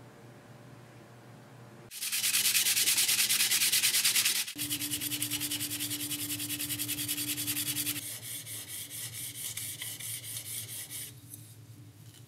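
Hand sanding of a part of a rusty hand plane: quick, even back-and-forth strokes of abrasive paper, about five or six a second. It starts about two seconds in and comes in three stretches, each quieter than the one before, ending shortly before the close.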